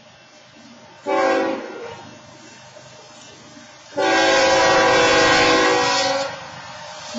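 BNSF freight locomotive's air horn sounding a short blast about a second in, then a long, loud blast from about four seconds in to past six: the short-then-long end of the long-long-short-long grade-crossing signal. The locomotive sounds it because the crossing's wayside horns timed out.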